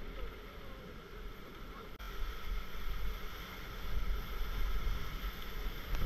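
Whitewater rushing around an inflatable raft on a river rapid, with wind buffeting the microphone as a low rumble; the water noise grows louder about two seconds in.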